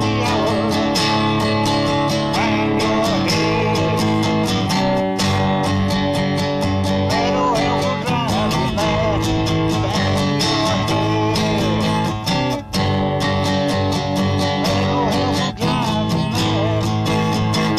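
Acoustic guitar strummed steadily in an even rhythm, chords ringing on with only brief breaks between strums.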